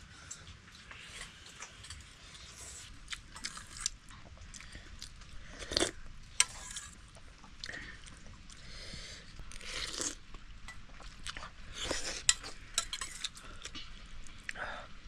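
People eating noodles: utensils clinking and scraping on dishes, with chewing, in a run of irregular sharp clicks.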